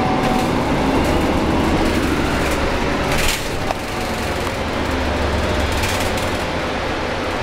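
Interior of a Volvo B9TL double-decker bus on the move: a steady low drone from its six-cylinder diesel engine mixed with road and rattle noise in the cabin, with a brief hiss about three seconds in.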